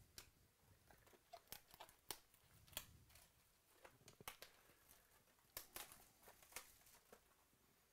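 Faint crinkling and tearing of a trading-card pack wrapper as it is opened by hand: a series of irregular sharp crackles and clicks.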